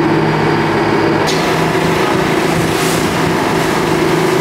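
Tour boat's engine running at a steady cruising drone, with water rushing past the hull. About a second in, a louder hiss of water and wind comes in.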